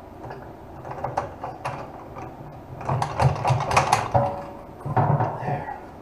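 Mechanical clicking and rattling, like a ratcheting mechanism: a few scattered clicks, then two dense bursts of rapid clicks about three seconds in and again about five seconds in.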